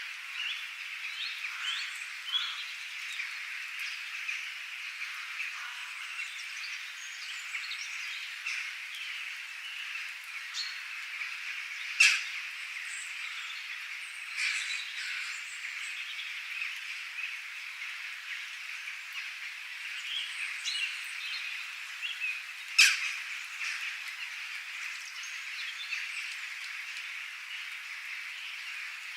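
Birds chirping in a nature ambience, many short calls scattered over a steady high-pitched background chorus. Two louder, sharp calls stand out, about 12 seconds and 23 seconds in.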